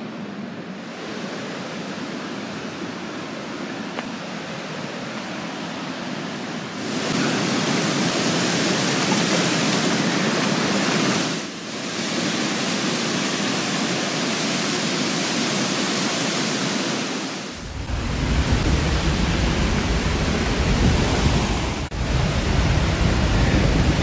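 Steady rushing roar of a large waterfall, growing louder about seven seconds in as the falls come near. In the last few seconds it carries a heavy low rumble from wind and spray buffeting the microphone.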